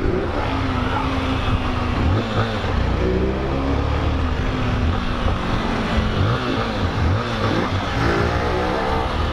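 Small single-cylinder Honda motorcycle engines revving up and down while riding, their pitch rising and falling repeatedly, with wind rushing over the microphone.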